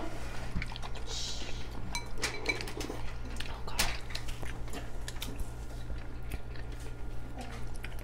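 Two people eating noodles: chewing and slurping, with scattered small clicks of forks and a spoon against glass bowls and a short slurp about a second in.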